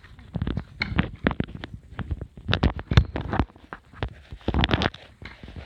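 Handling noise: irregular knocks, bumps and rubbing against the recording phone's microphone.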